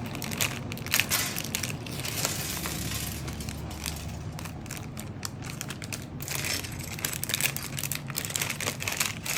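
Plastic packaging of a Lego set crinkling and rustling as it is handled and opened, with many small clicks of loose plastic bricks.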